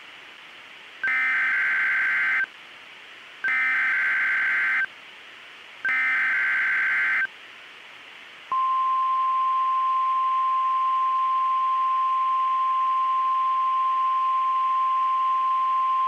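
Emergency Alert System SAME header: three short bursts of warbling digital data tones, then the steady NOAA Weather Radio 1050 Hz warning alarm tone, which starts about halfway through and holds on one pitch. Together they signal a tornado warning, over a faint radio hiss.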